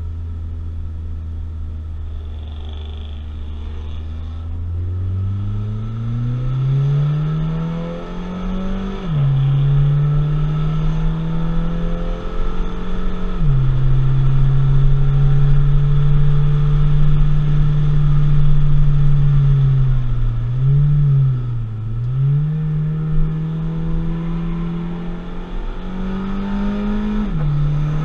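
Audi TT's engine heard from inside the cabin, running low and steady at first, then accelerating hard through the gears: the pitch climbs and drops suddenly at upshifts about nine and thirteen seconds in, then holds at high revs. Around twenty-one seconds the revs dip and come back up with a downshift, and they rise and dip again near the end.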